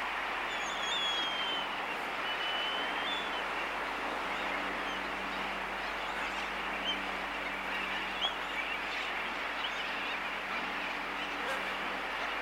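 Laysan albatross colony heard close: scattered sharp bill clicks, the loudest two about seven and eight seconds in, over a dense din of distant sooty terns. A few thin gliding whistle calls come in the first few seconds, and a faint steady low hum from an aircraft base runs underneath.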